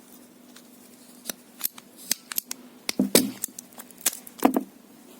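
Ratchet hand pruner cutting a thick dry branch in several strokes: a run of sharp clicks, with louder snaps about three and four and a half seconds in.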